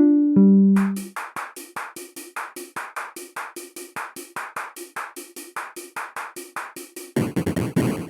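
Electronic music: a synthesizer keyboard phrase ends about a second in, giving way to a drum-machine pattern of rapid, evenly spaced hits, about four or five a second, with a short repeated pitched note. About seven seconds in, a louder, denser noisy layer joins the beat.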